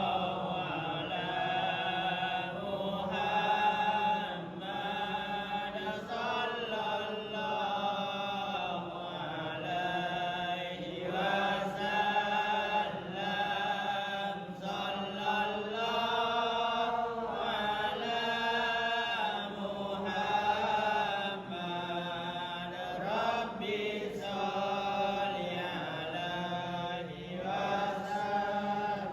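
Melodic Arabic Quran recitation in Witr prayer: one voice chanting long phrases that rise and fall in pitch, over a steady low hum.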